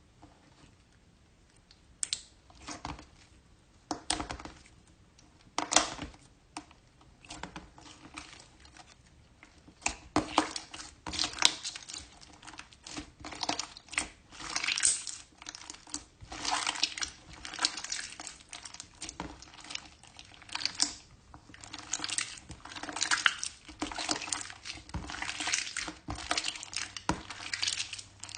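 Slime being squished and poked by hand: irregular sticky clicks and crackling pops, a few at first, then nearly continuous from about ten seconds in.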